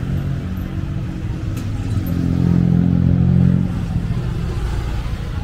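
Street traffic with a motor vehicle's engine passing close, growing louder about two seconds in and easing off after three and a half.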